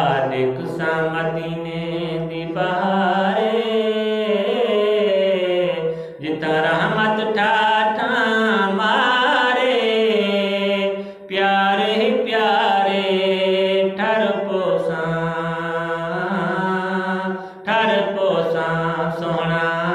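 A man chanting a Saraiki naat, a devotional poem in praise of the Prophet, solo into a handheld microphone. He sings in long, drawn-out melodic phrases with wavering pitch, pausing briefly for breath three times.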